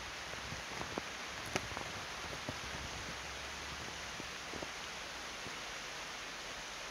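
Steady hiss with a few faint, scattered clicks, the sharpest about a second and a half in.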